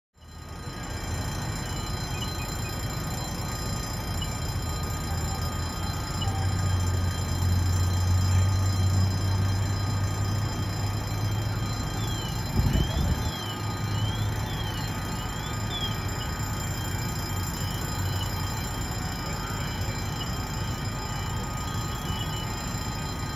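Steady low rumble of fire engines idling, swelling louder for several seconds in the middle. A faint warbling tone rising and falling several times and a single thump come about halfway through.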